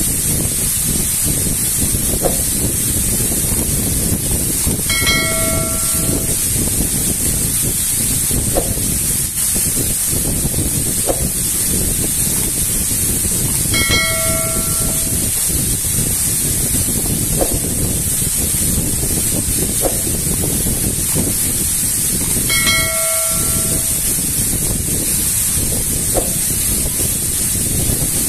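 Waterfall pouring and splashing onto rocks and a shallow pool, a loud, steady rushing. Three times, about nine seconds apart, a short chime sounds over it.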